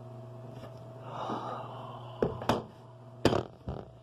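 Steady low electrical hum, with a breathy exhale about a second in. Then come several sharp knocks and bumps as a person pushes up off a desk.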